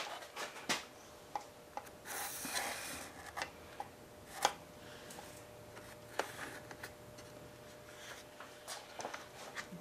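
Felt-tip marker dragging and scratching along thin cardboard as it traces around a sheet-metal basket, with scattered small taps and knocks of the metal and cardboard being handled.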